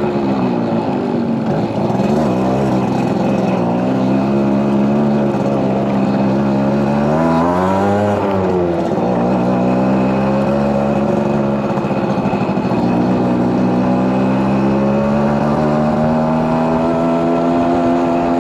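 Suzuki AX100 motorcycle's two-stroke single-cylinder engine running, its pitch dropping about a second in, then rising and falling again around eight seconds before holding steady.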